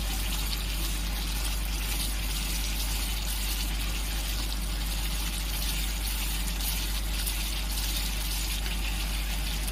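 Onion-and-spice masala paste, thinned with a little water, sizzling and bubbling steadily in oil in a kadai while being stirred and fried down to cook out the raw spices. A steady low hum runs underneath.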